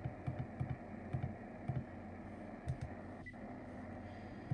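Buttons on the top panel of a Sangean HDR-15 clock radio being pressed: a quick series of soft, dull clicks, often in pairs, during the first three seconds. They are the presses that store an AM station as a preset.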